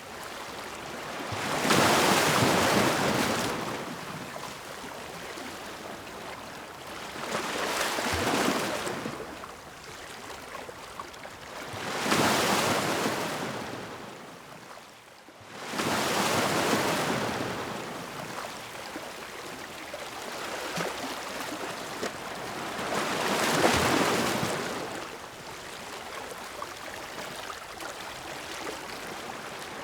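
Ocean waves breaking and washing in. A wave surges and falls away every few seconds.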